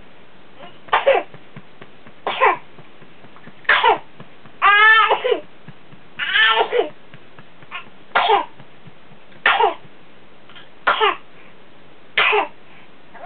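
A person in a prolonged fit of coughing: about ten hard coughs, roughly one every second or so, two of them in the middle drawn out with a strained, pitched voice. It is the kind of repeated coughing episode suspected of being whooping cough (pertussis).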